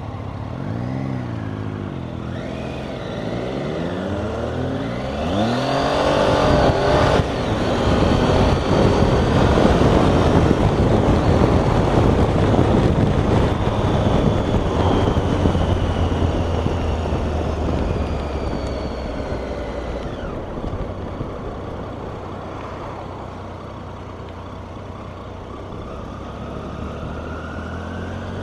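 Motorcycle engine pulling away and accelerating, its pitch rising and falling back several times as it shifts up through the gears over the first six seconds. Then loud wind rush on the helmet microphone at speed, easing off as the bike slows toward the end.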